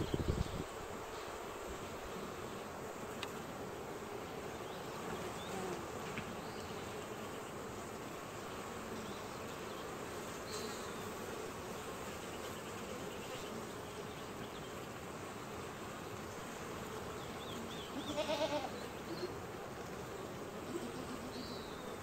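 Honey bees buzzing steadily at a hive entrance, with one louder, closer buzz near the end. A brief low thump at the very start.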